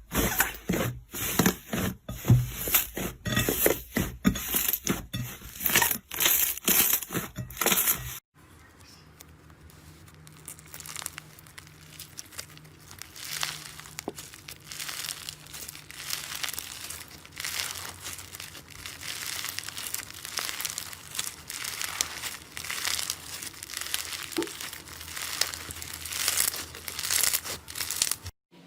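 Slime being worked by hand, crackling and crinkling. First come loud crackles about twice a second, then, after an abrupt change about eight seconds in, a quieter, continuous fine crackling.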